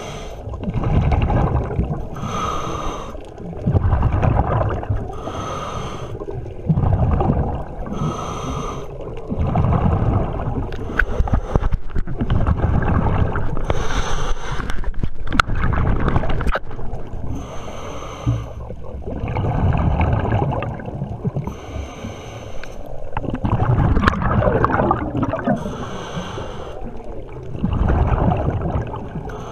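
Scuba diver breathing through a regulator underwater: a hissing inhale alternating with a rumbling burst of exhaled bubbles, every three to four seconds.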